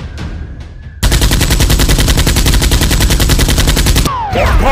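Machine-gun sound effect: rapid automatic fire starts about a second in, runs steadily for about three seconds and cuts off abruptly. Gliding electronic tones follow at the very end.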